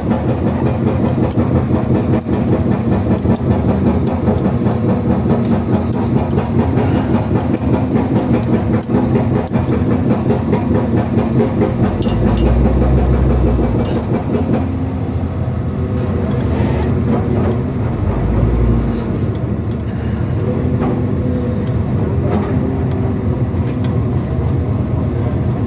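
Excavator-mounted hydraulic breaker hammering in rapid, continuous blows over the excavator's diesel engine. About halfway through the hammering eases, leaving the engine running steadily with brief low surges.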